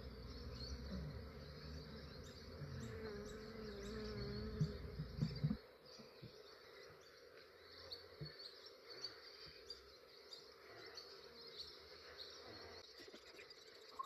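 Honey bee swarm buzzing, with one bee's buzz wavering close by for about two seconds near the middle of the first half. A low rumble stops about five and a half seconds in, leaving the buzzing fainter.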